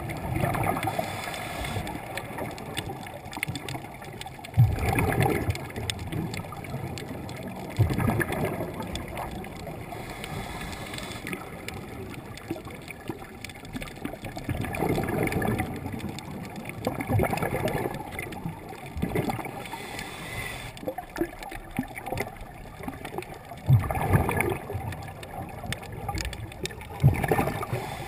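Scuba regulator breathing underwater, heard through a GoPro's waterproof housing: bubbly gurgling surges every few seconds over a steady water rush.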